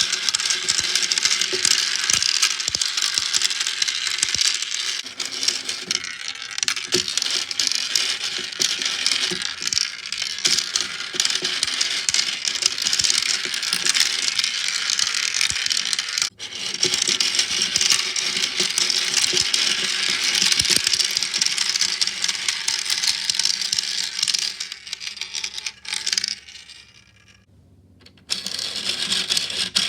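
Many small 6 mm balls clattering continuously through a tiny 3D-printed plastic marble run, a dense stream of quick clicks and rattles. The clatter drops away for a moment near the end, then starts again.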